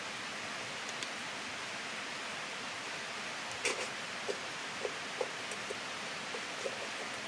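Steady rush of a moorland stream and waterfall, with a few small, short pops and clicks from about halfway in.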